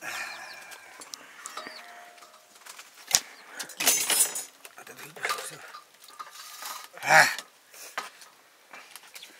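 Metal cooking pots and utensils clattering and scraping, with a sharp knock about three seconds in and louder clatters around four and seven seconds in.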